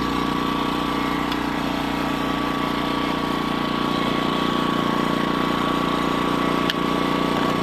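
Loncin 2000i inverter generator's single-cylinder four-stroke engine running steadily at its low economy speed with no load on it. A single short click sounds near the end.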